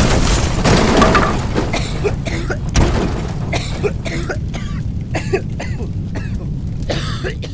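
Explosion sound effect dying away: a decaying rumble with scattered crackles and clattering of debris, fading out near the end.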